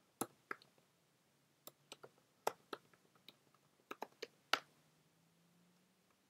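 Keystrokes on a computer keyboard: irregular typing clicks in short runs, ending with a louder single keystroke about four and a half seconds in.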